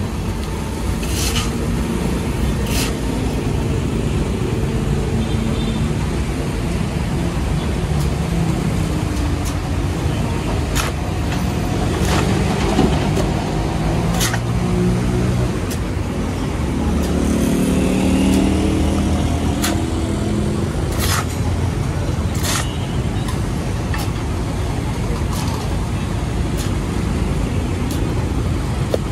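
Hydraulic excavator's diesel engine working under load while it digs and swings a bucket of dirt over a dump truck, its note rising and falling as the arm moves. Scattered sharp knocks through it.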